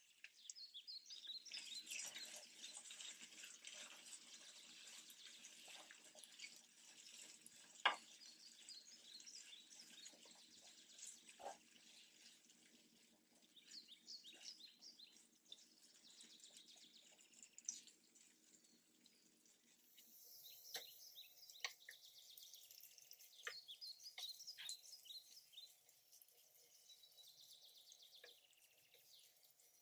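Near silence: faint background with soft high chirping and a few light clicks.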